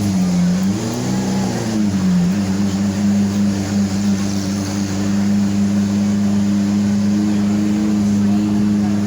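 An engine running steadily, its pitch dipping and rising briefly in the first two seconds before settling into an even hum.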